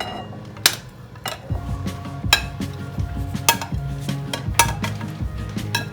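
Dishes and utensils clinking in sharp, ringing knocks about once a second, over background music.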